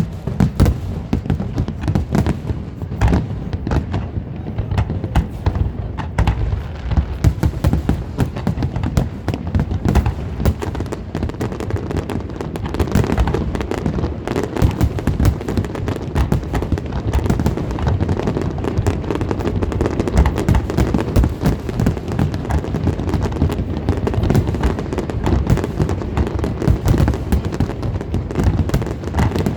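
Aerial fireworks shells bursting in a rapid, unbroken barrage of booms and cracks, growing denser about halfway through.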